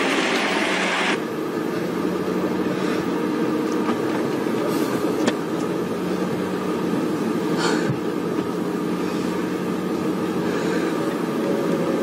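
Steady drone of a car's engine and road noise heard from inside the cabin. A louder hiss stops abruptly about a second in, and a few faint clicks follow.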